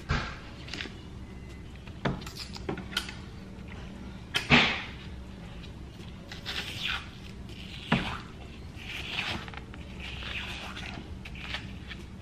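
A plastic spoon clicking and scraping against a frozen red ice dessert in a plastic cup, with a few sharp clicks, the loudest about four and a half seconds in. Softer scraping and mouth sounds from eating the ice follow.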